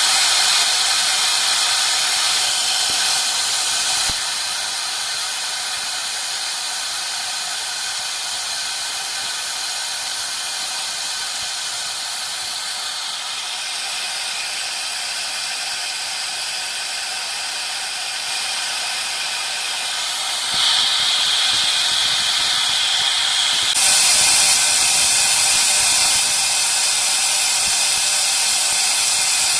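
CNC engraving machine's spindle running at high speed while cutting brass: a steady high hiss and whine with many fine tones. It eases off about four seconds in and grows louder and brighter again about twenty and twenty-four seconds in as the cut changes.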